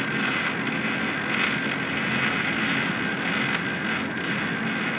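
MIG welder's arc crackling and sizzling steadily as a continuous bead is run on the metal, without a break.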